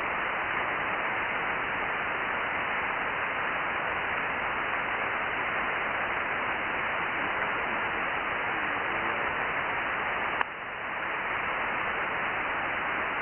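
Static hiss from an Icom IC-9700 receiving the RS-44 satellite's SSB downlink, with a weak station faintly buried in the noise, too far down to be understood. A single click about ten seconds in, after which the hiss dips and builds back up.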